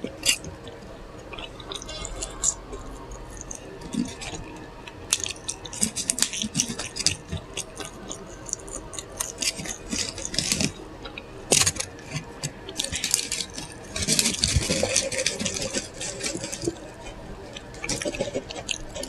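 Close-miked eating sounds of a burger being chewed: wet, squishy chewing and lip smacking with many sharp mouth clicks, thickening into a denser crackly stretch about two-thirds of the way through.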